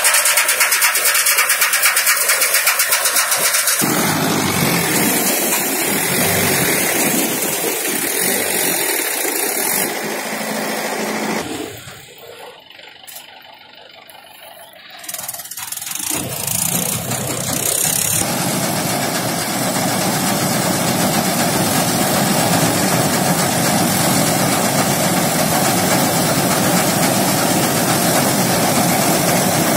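Combine harvester running as it cuts wheat: engine and threshing machinery making a loud, steady mechanical noise. It drops away to a much quieter low noise for about three seconds midway, then comes back.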